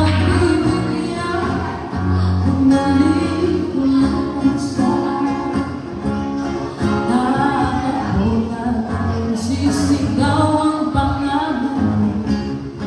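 A woman singing into a microphone, accompanied by an acoustic guitar played live.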